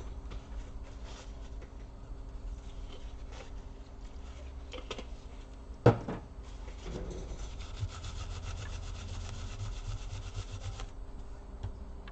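Kitchen paper dampened with alcohol rubbing and wiping old thermal paste off laptop cooling parts, a steady scrubbing that grows denser in the second half. There is one sharp knock about halfway through.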